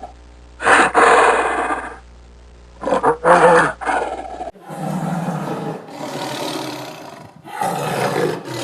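A large wild animal roaring: one long loud roar, then two shorter ones, then a change of recording about halfway through to longer, rougher calls.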